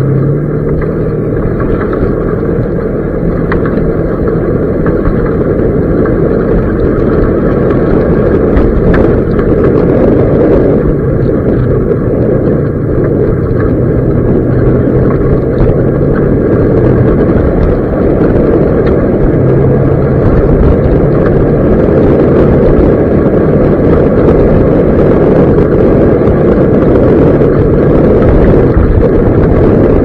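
Off-road vehicle engine running steadily while the vehicle drives along a rough gravel dirt road, with the loud noise of driving picked up by a camera mounted on the vehicle.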